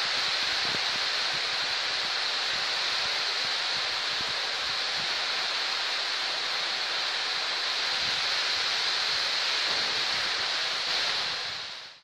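Heavy rain pouring steadily onto trees and grass: a dense, even hiss that fades out at the very end.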